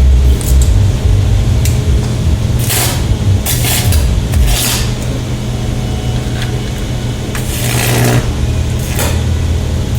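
Loud steady electrical hum at mains frequency, broken several times by short bursts of hissing crackle.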